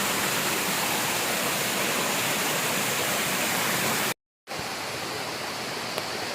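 Waterfall rushing steadily. It breaks off for a moment about four seconds in and comes back a little quieter.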